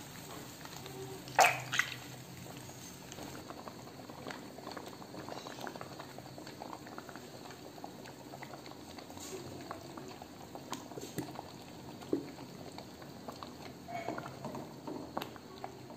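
Watery chili sauce base simmering in a wok: a steady soft bubbling with many small crackles. A short loud clatter about a second and a half in, and a few lighter ones near the end.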